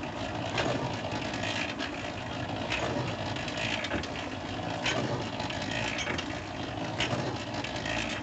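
Homemade washing machine turning its load, with a continuous mechanical rattle and a heavier knock roughly once a second.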